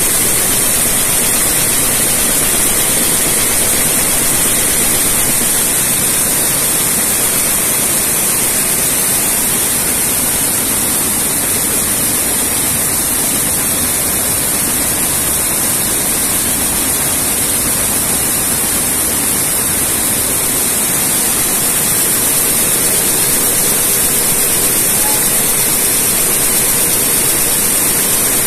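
Tsudakoma weaving loom running at speed with its mechanical tuck-in device working: a loud, steady mechanical noise with a strong high hiss.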